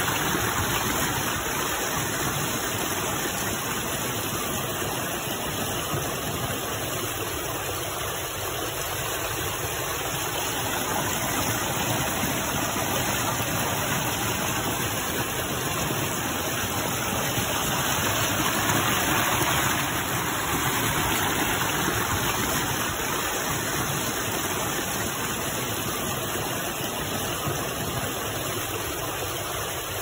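Rocky mountain stream rushing and splashing over boulders in small cascades, a steady, even wash of running water.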